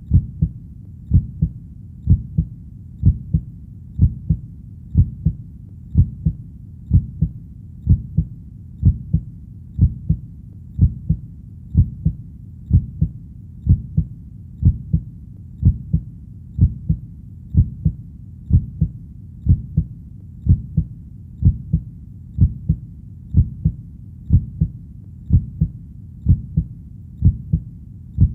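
Human heartbeat beating steadily at about one beat a second, each beat a pair of low thumps (lub-dub).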